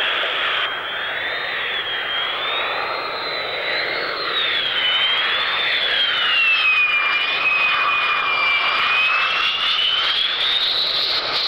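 General Dynamics F-111's twin TF30 turbofan engines on landing approach, gear down: a loud, high jet whine over a roar that wavers up and down in pitch and climbs steadily as the jet closes in over the last few seconds.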